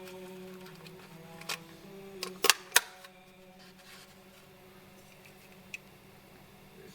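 A few sharp clicks and snaps of toy-car packaging being handled, the two loudest in quick succession about two and a half seconds in, over a faint steady hum that fades away about halfway through.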